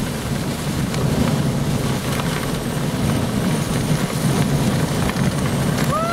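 Hurricane-force wind blowing hard, a loud steady rush of wind noise. Near the end a voice rises into a drawn-out call.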